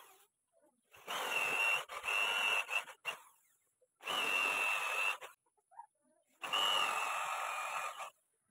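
Electric power drill running in three bursts of one to two seconds each, a steady high motor whine over the noise of the bit.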